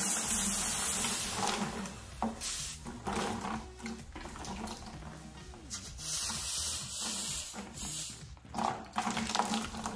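Water poured from a cup over a freshly brazed copper pipe joint, splashing on the metal and hissing into steam as it quenches the hot copper. The hiss is strongest in the first second or so and swells again around six to seven seconds in.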